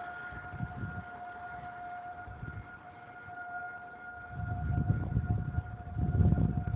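Siren holding one steady tone with no rise or fall, which the uploader takes for a malfunctioning fire-department siren. Low rumbling swells come and go about four and six seconds in.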